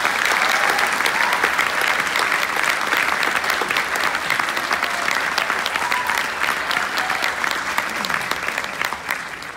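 Large audience applauding, a dense, steady clapping that starts dying away near the end.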